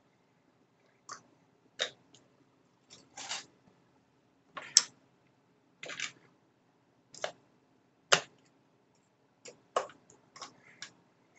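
Irregular sharp clicks and small knocks of hands handling a hard plastic cordless-drill battery housing and a screwdriver, about a dozen in all, the loudest two near the middle and about eight seconds in.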